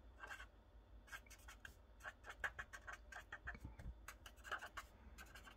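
Felt-tip marker writing on paper: faint, quick runs of short strokes.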